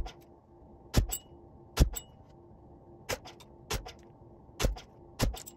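Full-steel gas blowback airsoft pistol (GBLS Colt 1911A1) firing single shots at a target, about seven sharp metallic cracks at uneven intervals of under a second to a second, each followed closely by a lighter clack as the slide cycles, some with a brief high ring.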